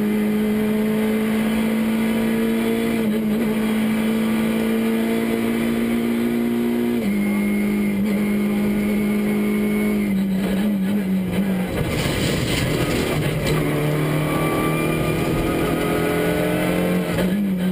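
Škoda Fabia R2 rally car's four-cylinder engine heard from inside the cockpit, running hard at steady high revs on a special stage. The revs drop a step about seven seconds in and lower again about twelve seconds in, where a rushing road noise joins. Near the end they climb again.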